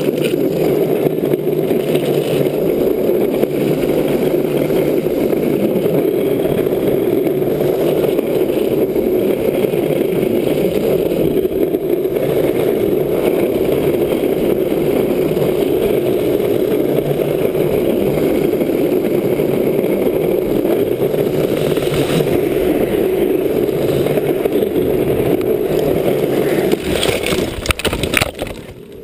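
Steady rushing wind and rolling noise from a drift trike running fast downhill on wet asphalt. Near the end comes a flurry of sharp knocks and scrapes, and the rushing falls away.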